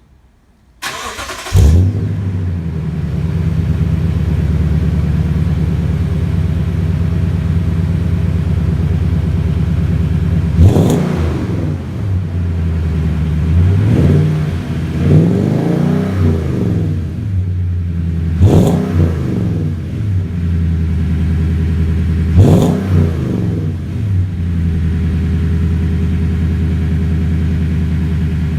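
Toyota Tundra 5.7-litre V8 exhaust, through a freshly installed Dynomax Ultraflow muffler with a 3-inch tip, starting up about a second in and then idling, soft at idle. In the second half come about six quick throttle revs that sound pretty aggressive before it settles back to idle.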